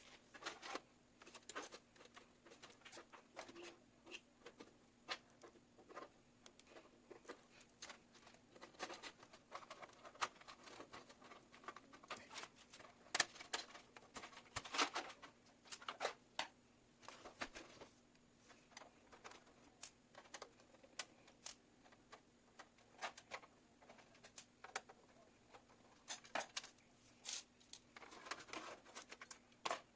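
Faint, irregular small clicks, taps and rustles of hands handling computer parts and cables during a PC build, a little busier about halfway through and near the end, over a faint steady hum.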